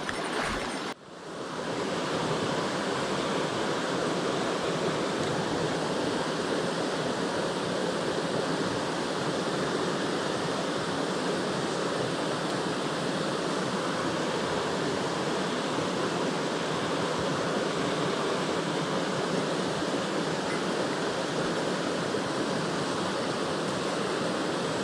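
Mountain stream water rushing steadily over rocks. The steady rush sets in about a second in, after a brief dip.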